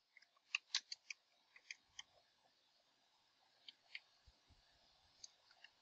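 Faint, irregular clicks of computer keyboard keys being typed, several in quick runs with a pause of about a second and a half in the middle.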